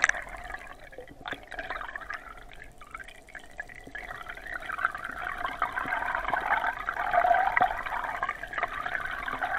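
Water rushing and gurgling as heard underwater by a camera towed through a lake while trolling, with a steady hum beneath; it grows louder from about four seconds in.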